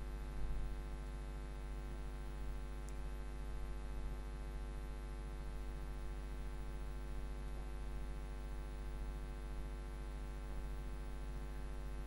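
Steady electrical mains hum with a buzzing stack of overtones, unchanging throughout.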